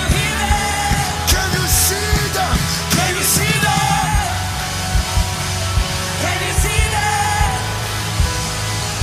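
Live worship band music: drums, steady bass and keyboard chords, with voices singing wordless lines over them.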